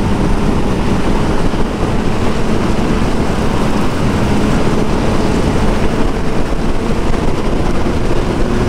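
Kawasaki Z900 inline-four with an aftermarket performance exhaust, pulling steadily at high speed with its engine note holding even. Heavy wind rush on the rider's microphone nearly buries the engine.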